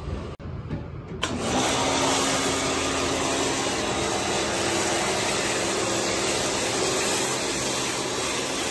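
Kärcher pressure washer starting about a second in and running steadily, its motor humming under the hiss of the spray gun misting degreaser from a detergent bottle attachment onto car carpet.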